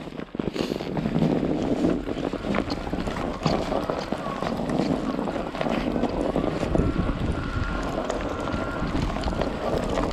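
Strong wind buffeting the microphone during a bike ride, a steady rumbling roar with scattered knocks and rattles.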